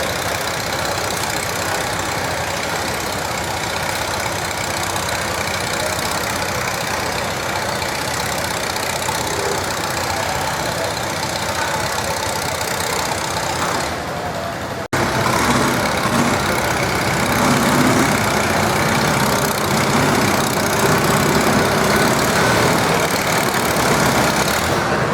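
Farmall farm tractor engine running at a tractor pull, a steady engine sound over broad outdoor noise. It cuts off abruptly about fifteen seconds in and comes back louder, with a deeper engine note.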